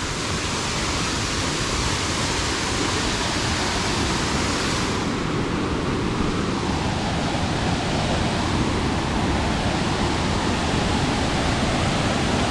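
Waterfall with a steady, loud rush of falling water. The speaker calls it loud.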